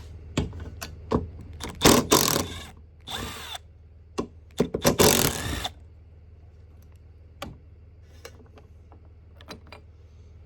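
Tools working loose a pickup's door mirror bolts: two short loud bursts of drill and ratchet noise about two and five seconds in, with a brief whir between them. Scattered sharp clicks and knocks follow.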